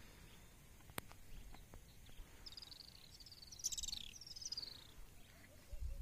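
A bird calling with a high, fast chirping trill that starts about two and a half seconds in and lasts a couple of seconds, over a faint low rumble. A single sharp click about a second in.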